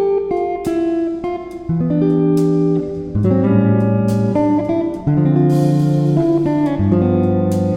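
Background music led by plucked guitar, with notes and bass changing at a steady pace.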